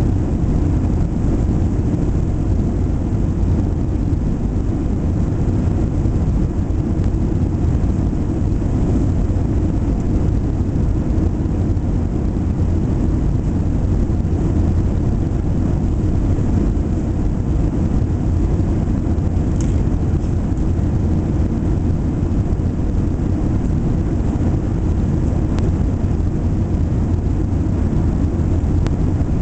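Steady cabin rumble of a Boeing 737-800 airliner from its engines and the air around it, even and unbroken. There is one faint click about twenty seconds in.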